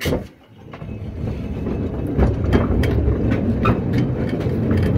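Mancha electric mine locomotive pulling away along mine rails: a short clunk at the start, then a low rumble of the wheels on the track that builds over the first couple of seconds and runs on steadily, with scattered clicks. The drive motor itself is nearly silent.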